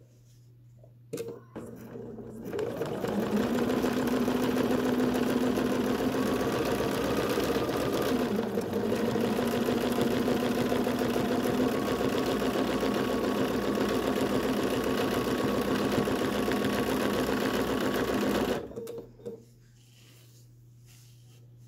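Domestic sewing machine quilting through a fabric sandwich: a click about a second in, then the machine runs up and stitches at a steady speed for about sixteen seconds, stopping about three seconds before the end with a couple of clicks.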